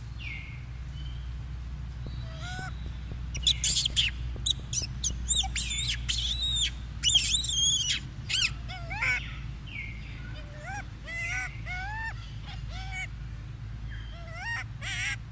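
Young macaque monkeys calling: many short, high squeaks and coos that rise and fall in pitch, coming in quick runs, loudest and busiest a few seconds in and thinning out later.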